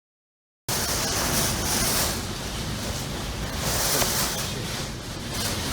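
Hurricane wind gusting, buffeting the microphone with a heavy low rumble under a hiss that swells and fades; it cuts in abruptly out of silence under a second in.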